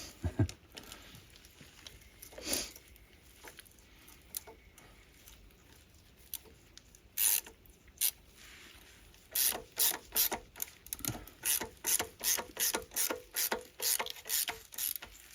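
Ratchet wrench being worked: a few scattered clicks at first, then from about nine seconds in, steady back-and-forth strokes of rapid pawl clicking, about two strokes a second, as a bolt is tightened.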